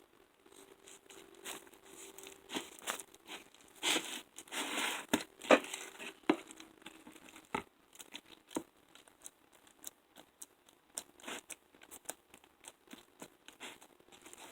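Slime being mixed and kneaded by hand: irregular sticky clicks, pops and squelches, busiest in the first half.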